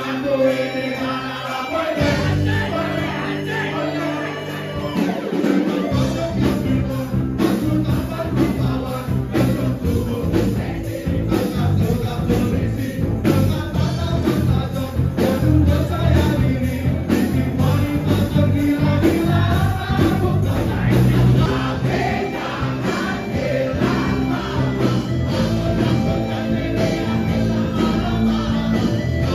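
Music with singing over a steady beat and bass line. The beat comes in about two seconds in, and the music fills out about six seconds in.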